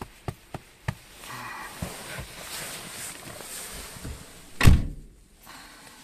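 A few light clicks and knocks, then a car door shuts with one loud thud about three-quarters of the way through.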